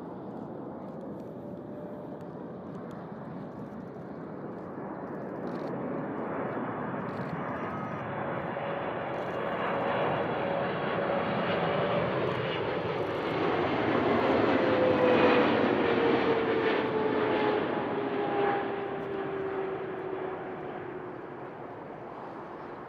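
A Boeing 777-200LR's twin GE90 turbofans on landing approach, passing close by: the jet noise builds to a peak about two-thirds of the way through and then fades, with an engine whine that falls in pitch as the aircraft goes past.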